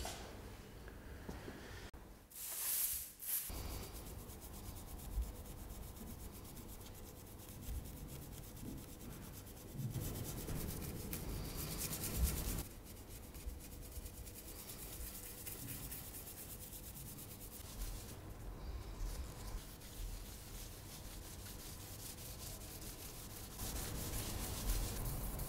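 A brush and a rag rubbing and scrubbing over a sheet of drawing paper: a continuous scratchy rubbing of quick fine strokes, louder for a moment a few seconds in, again around the middle, and near the end.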